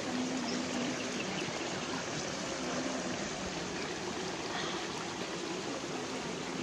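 Shallow stream running over rocks: a steady, even hiss of flowing water.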